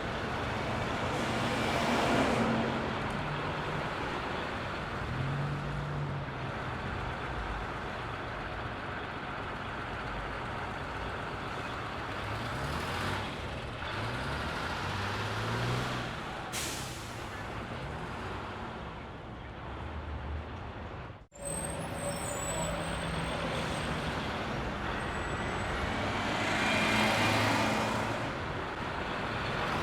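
Bus station ambience: bus and truck diesel engines idling and moving off, swelling as they pass, with short hisses of air brakes. A brief drop-out comes about two-thirds of the way through, followed by faint high squeaks.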